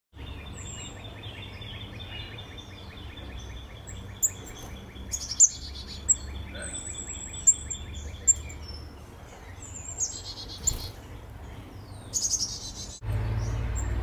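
Songbirds calling and singing around a seed feeder: a long high trill through the first half, thin high whistles and sharp chip notes, and a burst of buzzy high calls about twelve seconds in, all over a low steady hum.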